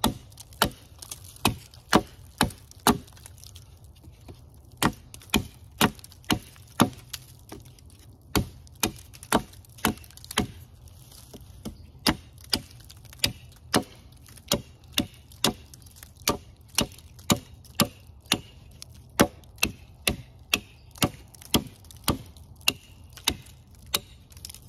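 Nedfoss 15-inch Hudson Bay-style hatchet chopping a point onto the end of a stick held against a log: a long series of sharp wooden chops, roughly one to two a second, with a couple of short pauses.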